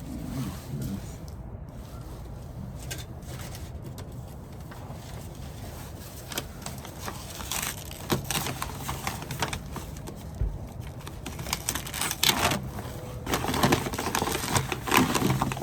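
Rustling and crinkling of packaging as a mailed box of beer is unpacked, with bottles being pulled out of bubble wrap. The handling noise is light at first and turns busy with crackles and clicks about halfway through, over a low steady hum.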